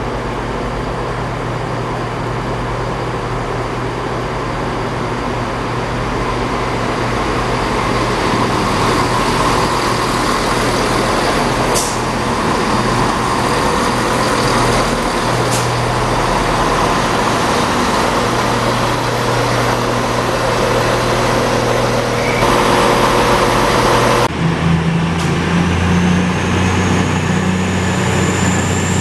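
Diesel engines of a CrossCountry Class 170 Turbostar running as the train rolls in along the platform, growing louder, with a couple of sharp ticks midway. About 24 seconds in the sound changes abruptly to an East Midlands Railway Class 222 Meridian diesel train moving past, its engines running with a high whine rising in pitch.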